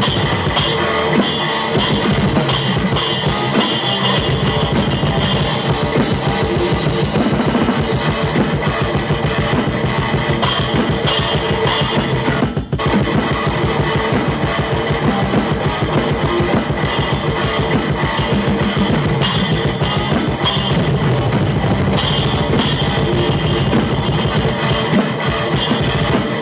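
Drum kit played hard along to a heavy-metal electric guitar track, with rapid, even bass-drum strokes under steady cymbals. The playing breaks off for an instant a little before the middle, then drives on.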